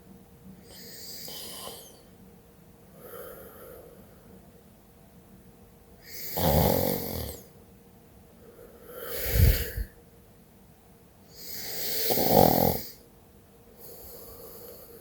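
A woman snoring in her sleep while ill, breathing in a slow rhythm about every two to three seconds. The first breaths are soft, and three much louder snores follow in the second half.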